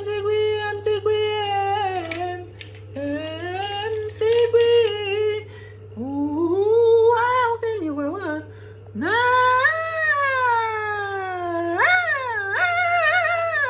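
A person humming and singing wordlessly. The voice holds long notes and slides up and down in pitch, with a long downward slide near the end.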